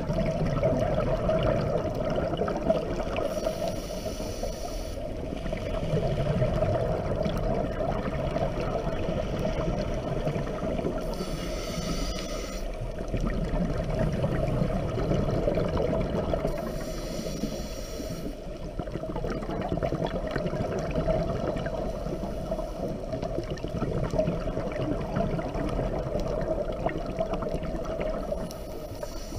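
Scuba diver breathing through a regulator underwater: continuous bubbling and gurgling, with a brief higher hiss at each breath about every five to six seconds.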